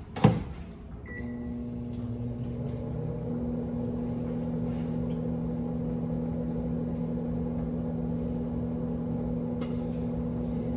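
A loud clack, then a short beep about a second in, and a microwave oven starts up and runs with a steady hum, heating the noodles in water.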